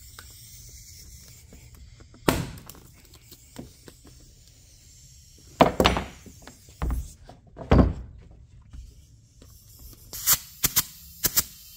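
Several separate thunks and knocks, a few seconds apart, with a quick cluster of sharp knocks near the end, from handling the mower wheel, ratchet strap and tools after the tire bead has been seated.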